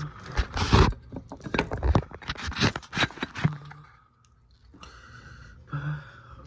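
A quick run of knocks and scrapes from objects being handled, then two short rustles near the end.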